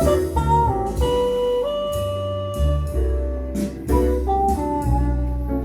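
Music played back through Wharfedale Laser 90B loudspeakers driven by a Luxman L-215 amplifier: a lead melody of long held notes with slight slides between them over a deep, steady bass line.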